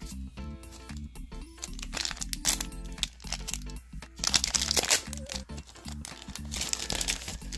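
Foil trading-card booster pack crinkling and being torn open by hand, in several bursts of rustling, loudest around the middle. Background music plays underneath.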